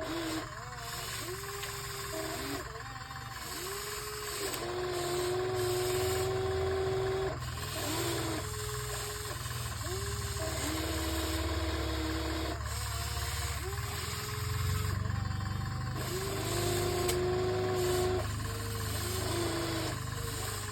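Radio-controlled excavator's electric motors whining in a series of short runs, each rising quickly in pitch, holding steady and then cutting off, as the machine works its arm and bucket, over a low steady hum.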